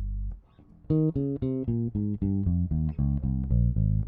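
Alien Audio Constellation four-string electric bass played direct with no processing, its treble control off and tone knob turned up: a held note is cut off, then after a short pause a quick run of plucked notes follows, about four a second.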